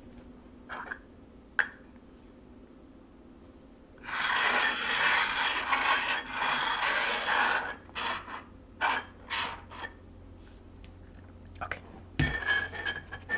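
Small round metal tins being slid and shuffled across a hard tabletop: a continuous scraping for about four seconds, followed by several short scrapes and clicks as they are set down. A single thump near the end.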